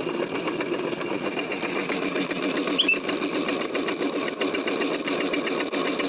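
Sugarcane crusher running steadily, its geared rollers crushing cane stalks, with a fast, even mechanical rattle.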